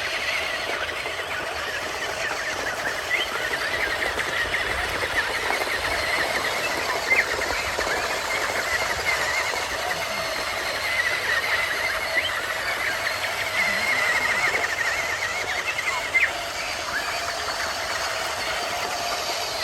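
Small electric motors and gearboxes of RC construction models whirring steadily, with a few faint clicks.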